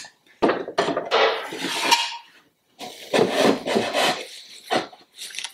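Painted wooden drawers of an IKEA MOPPE mini chest sliding into their slots, wood scraping on wood in two long strokes, the second ending in a light knock.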